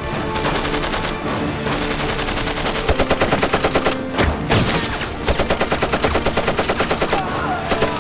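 Light machine gun firing in rapid bursts of about ten shots a second, growing dense from about three seconds in. Film music plays underneath.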